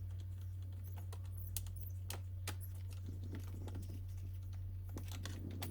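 Scattered light clicks and taps, a few to several a second and irregular, over a steady low electrical hum.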